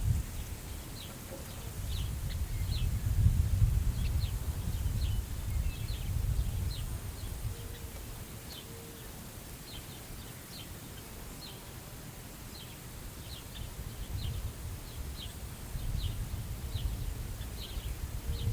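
Wind gusting over the prairie grass and the microphone, a low rumble that eases off in the middle and picks up again near the end, while a bird gives short chip calls, one or two a second.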